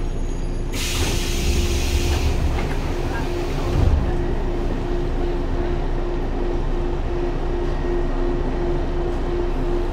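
Inside a JR 115-series electric train car: a hiss of compressed air begins about a second in and fades over the next few seconds, then a thud near four seconds in. After that comes a steady low rumble with a pulsing electrical hum.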